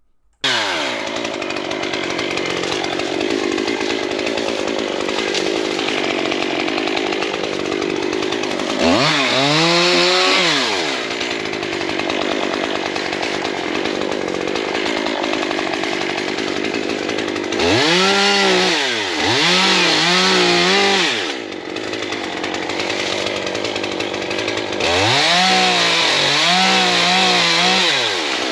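Stihl chainsaw running at idle, revved up in bursts as it cuts brush and debris: once about nine seconds in, twice around eighteen to twenty-one seconds, and once more near the end, the pitch rising each time and dropping back to idle.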